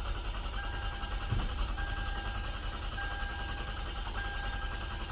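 2013 Lexus ES350's 3.5-litre V6 idling steadily just after starting, following a dead battery. Over the idle, a steady electronic tone sounds in roughly one-second stretches with short gaps.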